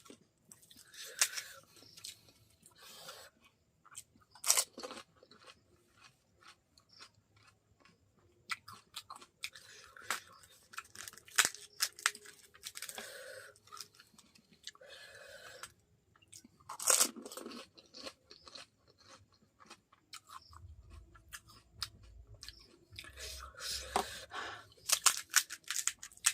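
A person biting into and chewing golgappas (pani puri), the crisp fried puri shells crunching in the mouth again and again at irregular intervals.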